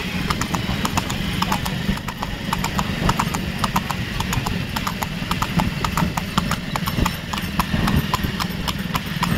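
A horse's hooves on asphalt in a fast trot, a quick run of clip-clop hoofbeats as it pulls a two-wheeled cart, over a steady low rumble.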